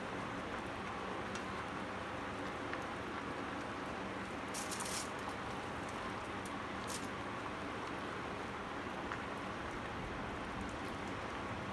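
Steady hiss, with a few brief scrapes of a spoon against a bowl as mashed sweet potato filling is spooned into the potato skins, one about halfway through and another a little after.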